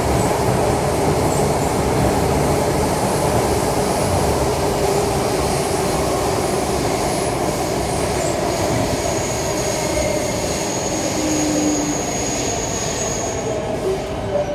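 Alstom C751A metro train running through a tunnel, heard from inside the carriage: a steady rumble of wheels and tunnel noise. About halfway through a thin high whine joins it and the noise eases a little toward the end as the train slows for the station.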